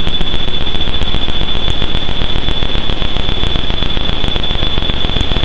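Roland AIRA Compact S-1 synthesizer playing a loud drone of dense crackling, static-like noise with a steady high whistling tone over it.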